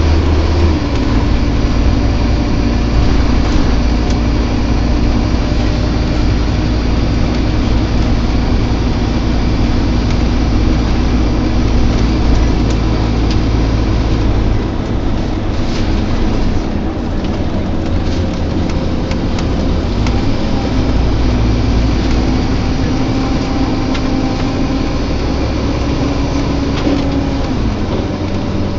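Scania K230UB single-deck bus heard from inside while driving: the engine and driveline run with a steady low rumble and a groaning drone. The drone steps down in pitch about a second in and again near the end.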